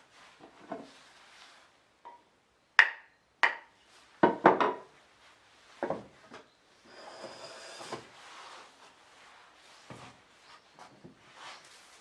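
Wooden knocks and rubbing from a Japanese plane (kanna) being worked on: two sharp knocks, a louder cluster of knocks right after, then a stretch of rubbing or scraping on wood with a few softer knocks.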